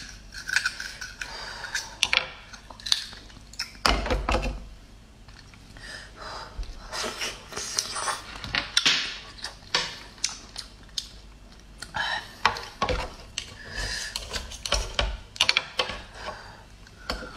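Small knife clicking and scraping against raw oyster shells as they are pried open, with shells knocking on a plate. About eight seconds in, a wet slurp as an oyster is sucked from its half-shell.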